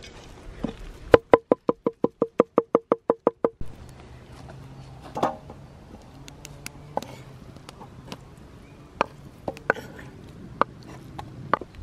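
A knife chopping minced lamb on a wooden board: a quick run of about fourteen even knocks, roughly five a second, lasting some two and a half seconds. After that come scattered single clicks and knocks as a metal pan and the knife are handled and the mince is scraped off the board.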